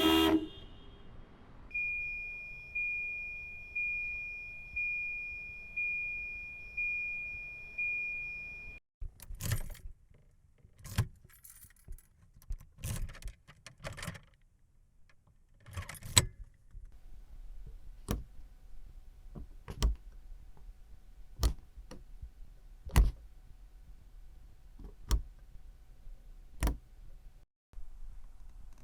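Sounds of a 1990 Volvo 240. A sharp knock, then a warning chime sounding seven times, about once a second, each ring fading. Then keys jingling and clicking, and finally single sharp clicks about every second and a half.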